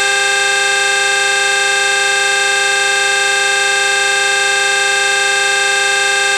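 A horn held as one long, unbroken, steady tone, loud and unchanging in pitch, cutting off suddenly just after the end.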